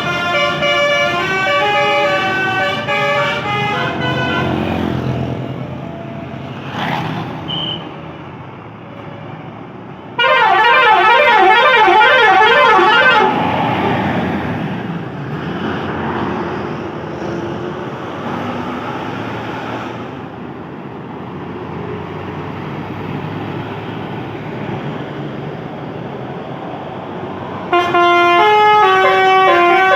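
Basuri 'telolet' multi-tone bus horns playing loud melodies in bursts: a stepped tune at the start, a fast warbling trill for about three seconds around the ten-second mark, and another stepped tune beginning near the end. Between the horn bursts, quieter bus engine and traffic noise.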